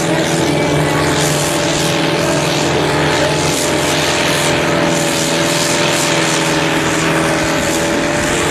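Antique tractor's engine running hard at steady full throttle, pulling the weight sled under load, with its wheels digging in the dirt.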